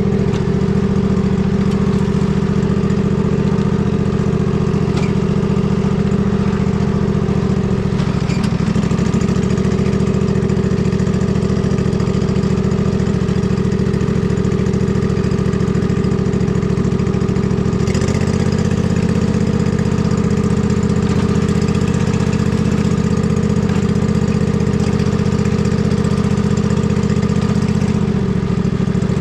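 Husqvarna riding mower engine running steadily as the mower is driven along a muddy trail. The engine note changes about 18 seconds in and again near the end.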